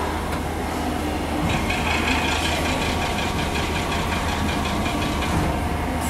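Safety buckle assembly machine running: a steady low machine hum, joined about a second and a half in by a rapid, finely ticking mechanical whir.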